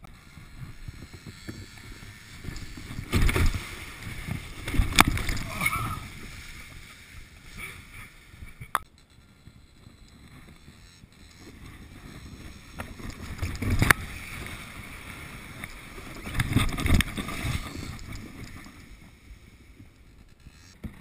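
Plastic kayak hull sliding and scraping over snow, with rougher, louder stretches around 3 to 6 seconds in and again near the end, and a few sharp knocks as it goes over bumps, the hardest about 14 seconds in.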